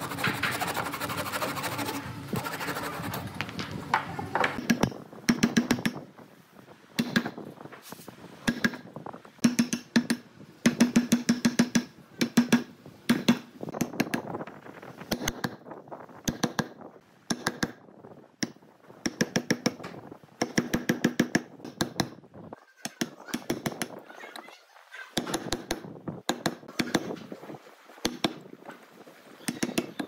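A hand saw rasping through a wooden rail for the first few seconds. Then a steel chisel is struck in quick runs of sharp taps, chopping a mortise into a hard red wood slab, with short pauses between runs.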